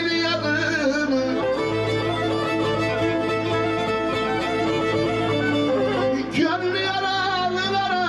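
Background Black Sea folk music: a bowed kemençe with a singing voice, held notes wavering in pitch.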